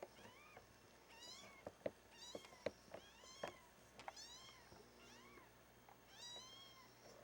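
A litter of young kittens, about three weeks old, mewing faintly: thin, high calls that rise and fall, several kittens at once, over and over. A few sharp taps come through between the mews.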